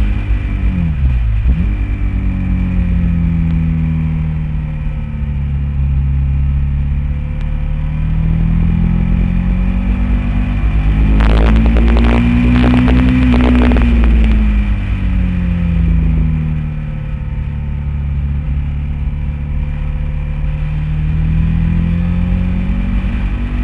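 Honda VTR1000 SP1's V-twin engine heard onboard at track speed. Its note dips briefly at the start, then rises and falls in long sweeps as the throttle is opened and closed. A cluster of sharp clicks comes around the highest revs midway.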